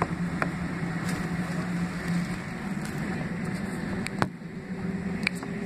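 Cabin noise of a Boeing 767-300ER taxiing, heard from inside the cabin: a steady hum and rush from its two General Electric CF6-80C2B6 turbofans. A few sharp clicks come through it, the loudest about four seconds in.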